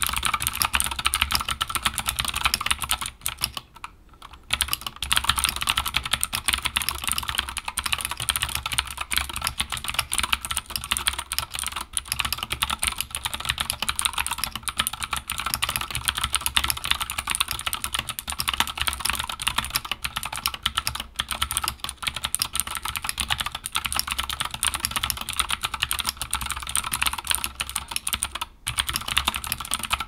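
Continuous fast typing on a Keychron K14 mechanical keyboard with clicky Gateron Blue switches: a dense stream of sharp key clicks, with a brief pause about four seconds in.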